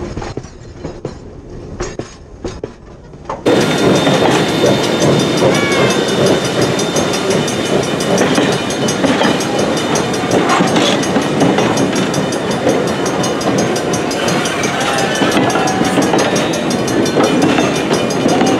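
Railroad passenger coaches and a caboose rolling past on wet track, wheels clicking over rail joints. For the first few seconds it is heard from beneath the passing cars; about three and a half seconds in it jumps to a loud, steady trackside rolling noise.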